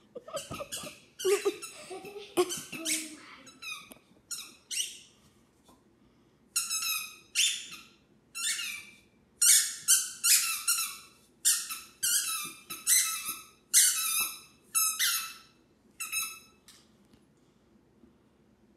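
A dog chewing a squeaky toy, setting off a long series of short, high squeaks: a few irregular ones, a brief pause, then about a dozen more in quick succession that stop near the end.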